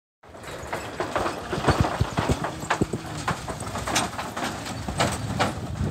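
Motorcycle riding over a floating plank-and-bamboo walkway: the loose boards clatter and knock irregularly under its wheels, with the engine running low underneath.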